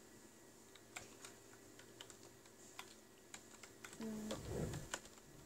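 Laptop keyboard keys pressed one at a time, light separate clicks spread out, as a login is typed. A short low-pitched sound about four seconds in is the loudest moment.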